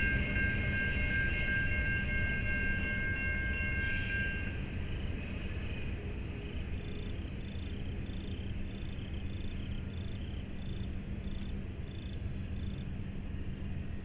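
Low rumble of a passing freight train fading gradually as it moves off, with a steady high whine that stops about four and a half seconds in. Later a faint high tone pulses about twice a second.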